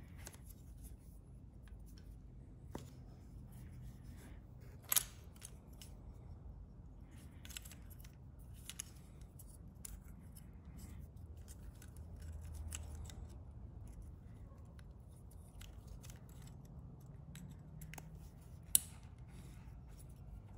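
Plastic fuel injector wiring connectors being released, handled and pushed together by hand: scattered sharp plastic clicks as the locking tabs unlatch and latch. The loudest clicks come about five seconds in and near the end, over a faint low hum.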